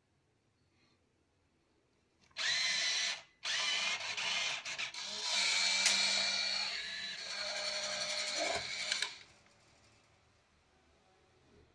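Smiley NV9 USB banknote acceptor drawing in and stacking a banknote. Its transport motor starts about two seconds in, pauses briefly, then runs with a steady whine for about six seconds before stopping.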